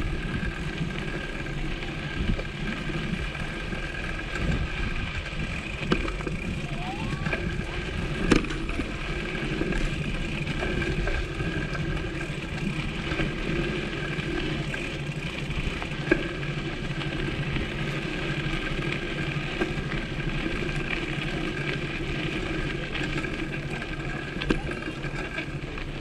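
Steady ride noise from a bicycle rolling over a rough path, with a constant hum and a few sharp knocks from bumps. The loudest knock comes about eight seconds in.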